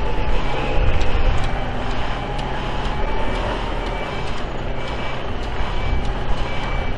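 Mercedes-Benz heavy-haulage tractor unit running steadily at low speed as it pulls a loaded multi-axle trailer, a deep engine rumble. A short high warning beep repeats about every 0.8 s over it.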